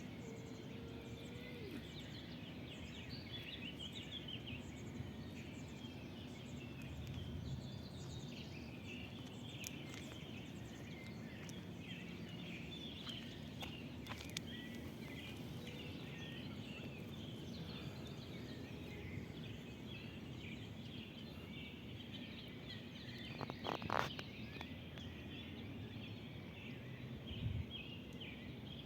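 Outdoor ambience with many small birds chirping and twittering, and a brief louder knock near the end.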